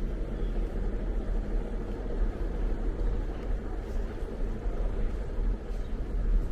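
Steady low rumble of outdoor city background noise, with no distinct events standing out.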